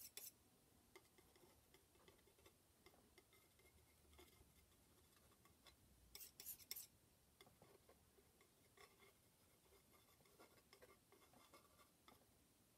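Near silence with a few faint clicks and light scrapes of a metal palette knife against the paint palette, a short cluster of clicks about six seconds in.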